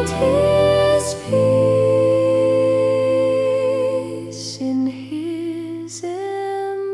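Slow, gentle Christmas song: a singing voice holds long notes with a slight waver over sustained low accompaniment.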